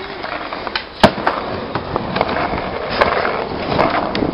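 Skateboard wheels rolling on asphalt, with sharp clacks of the board and knocks of wood. The loudest crack comes about a second in, and smaller knocks follow later.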